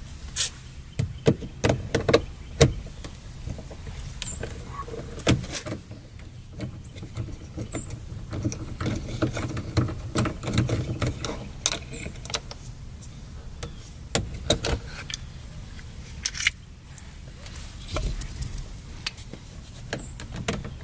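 Clicks and knocks of a 10 mm wrench and socket working the two bolts out of a pickup's door switch panel, in irregular clusters over a low rumble.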